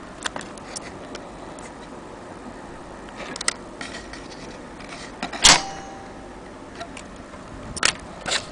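Irregular mechanical clicks and snaps of a small metal mechanism being handled. The sharpest snap comes about five and a half seconds in and rings briefly.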